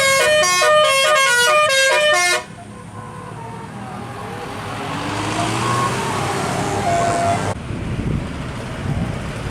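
Telolet musical air horn on a vehicle playing a quick tune of short notes that step up and down in pitch for about two and a half seconds, then cutting off sharply. It gives way to quieter vehicle and road noise that swells and changes abruptly near the end.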